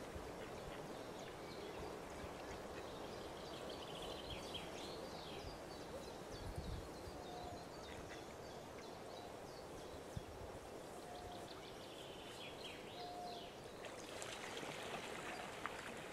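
Quiet outdoor pond-side ambience: a steady wash of wind and water noise, with small birds chirping in short bursts and a faint short note repeating a few times in the middle.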